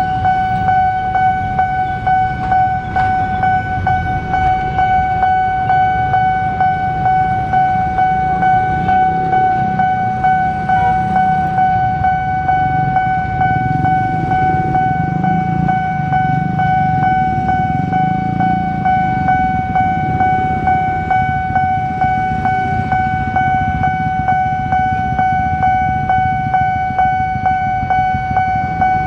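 Railway level-crossing warning alarm sounding as one unbroken high tone, over the low rumble of motorcycles idling at the lowered barrier.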